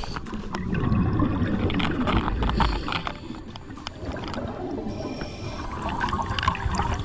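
Water gurgling and bubbling, with many small irregular clicks and pops.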